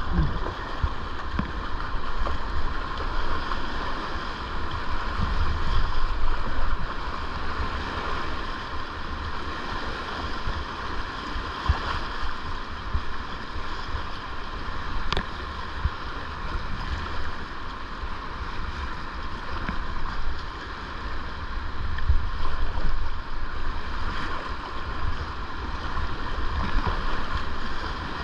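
Whitewater rapids rushing around a kayak, with the paddle splashing in the water and a low rumble of wind on the microphone.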